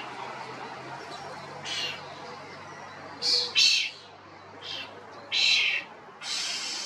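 Common (European) starling giving about six short, harsh calls at uneven intervals, two of them in quick succession a little past the middle.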